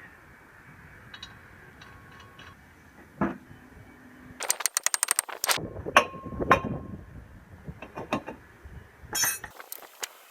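Metal clinks and knocks of hand tools and brake parts being handled, with a quick run of evenly spaced clicks lasting about a second midway through.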